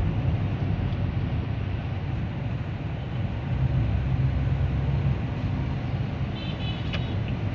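Steady low rumble of a car's engine and tyres, heard inside the cabin while driving, swelling for a second or so midway. Near the end comes a quick run of high beeps and a single click.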